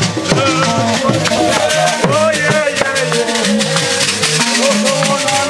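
Ngoma dance music: a group of voices singing over a wooden skin-headed ngoma drum beating a steady rhythm, with rattles shaken along with the beat.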